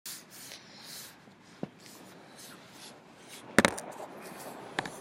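Rubbing and knocking of hands on the recorder or microphone, with a sharp knock a little over a second and a half in and louder knocks about three and a half seconds in and near the end. Behind it is a steady hiss of surf.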